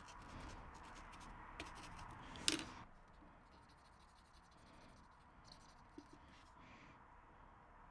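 Fiberglass pencil scrubbing a corroded copper trace on a circuit board: a faint scratching, with a brief louder scrape about two and a half seconds in, fading to a few faint ticks after about three seconds.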